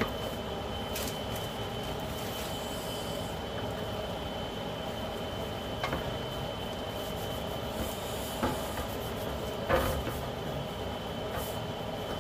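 A whole sea perch dredged in starch by hand in a stainless steel tray, with a few short knocks of fish and hand against the metal pan, the loudest about ten seconds in. Under it runs a steady background hum with a faint high whine.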